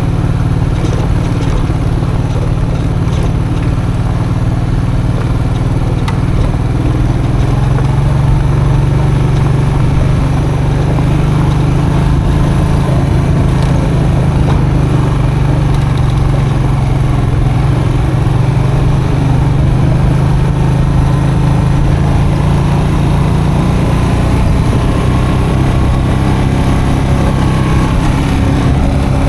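Custom motorcycle engine running steadily under way on a dirt road. Its note rises a little about seven seconds in and then holds, over a constant rush of road and wind noise.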